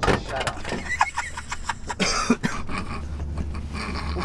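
A man coughing and laughing in short bursts over the low, steady hum of the van.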